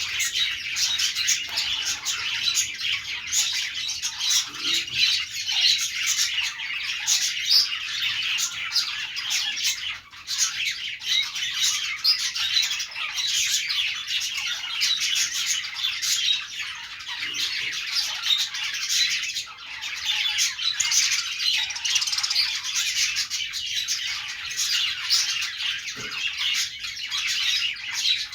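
Budgerigars chattering and chirping continuously in a dense mix of calls and squawks, with a brief lull about ten seconds in.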